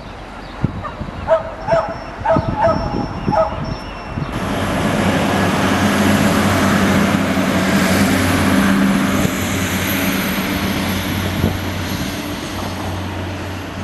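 A dog barks about six times in quick succession. Then, about four seconds in, a heavy vehicle's engine comes in abruptly as a steady low hum with a hiss; it swells and then slowly fades.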